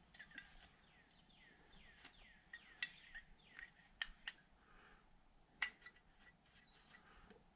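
Faint handling of a small carburetor being wiped dry with a rag: soft cloth rubbing and a few sharp little metal clicks from its parts. A run of faint short falling chirps sounds in the first few seconds.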